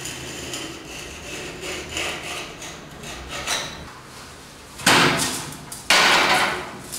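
Faint handling and tapping at the wall, then two loud rasping scrapes under a second each, about a second apart: a tool scored along the dried plaster to cut plank lines.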